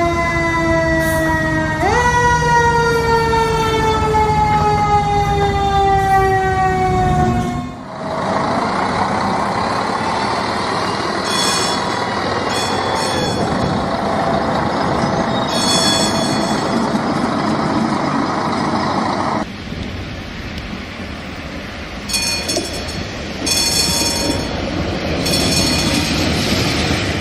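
Fire truck siren wailing, its pitch falling slowly and jumping back up once. About eight seconds in it gives way to a tram running on its rails, its bell ringing in short strokes several times.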